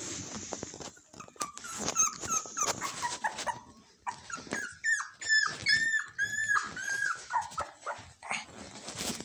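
Shiba Inu puppy whimpering in a string of short, high cries, which come thicker and closer together about halfway through.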